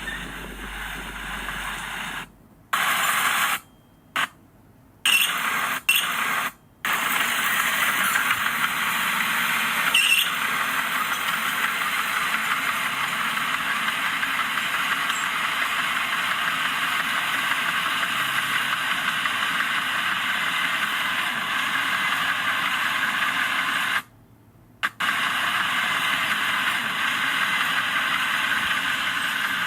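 Heavy earthmoving machinery running, a steady noisy engine drone with little distinct pitch, cut off abruptly several times for a fraction of a second to a second, in a cluster of breaks near the start and once more near the end.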